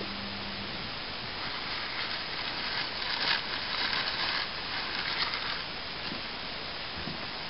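Paper sandwich wrapper crinkling and rustling as it is scrunched up in the hands, over a steady hiss. The crinkling builds up a couple of seconds in and stops shortly before the end.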